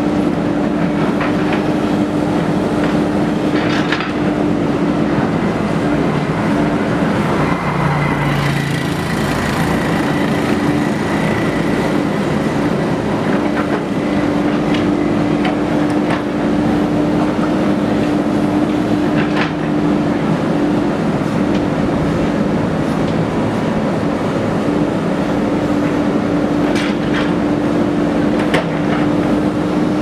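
JCB 3DX backhoe loader's diesel engine running steadily under load while the backhoe arm digs, with a steady hum and a few short knocks. A higher whine joins for a few seconds about eight seconds in.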